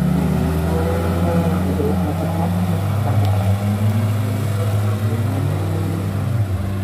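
Ford Ranger pickup's engine running under load as it pulls away along a muddy dirt track: a low steady drone that drops in pitch near the end.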